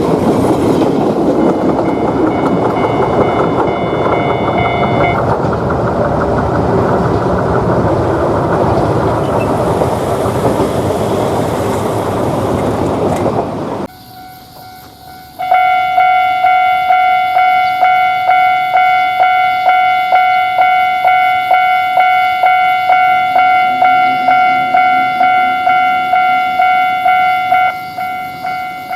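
An Ichibata Electric Railway train passing at close range, a steady rumble and clatter of wheels on rail. About halfway through the sound cuts to a level-crossing warning bell ringing its "kan-kan" alarm, a clear ringing tone repeated in a quick, even rhythm that turns quieter near the end.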